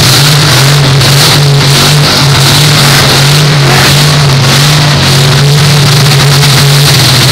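Engines of full-size demolition-derby cars held at high revs with wheels spinning, a loud, steady engine drone. There are no clear crashes in it.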